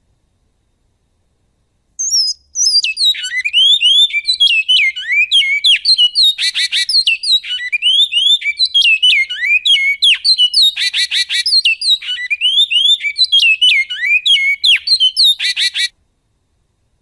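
Male great-billed seed-finch (bicudo) singing one long song phrase in the goiano style, lasting about fourteen seconds. It is a fast run of clear whistled notes, most sliding downward, broken three times by short harsh buzzy notes. It starts about two seconds in and stops a second before the end.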